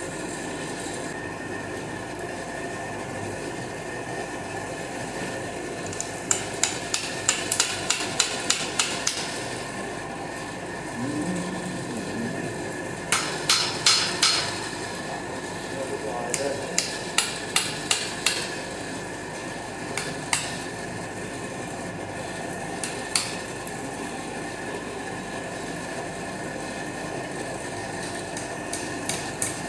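Hand hammer striking hot steel on an anvil in quick runs of blows, about three a second, with pauses and a few single strikes between, over a steady background noise.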